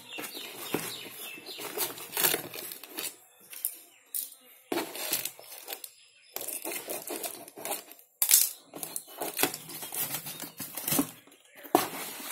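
Cardboard box being opened by hand: irregular rustling and scraping of the flaps, with packing tape crinkling and tearing. There are short pauses, and a sharp snap about eight seconds in is the loudest sound.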